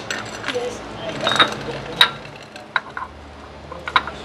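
Sharp, uneven metallic clinks of an oil filter cap wrench and breaker bar being worked on and off a cartridge oil filter housing cap that is stuck tight and will not turn.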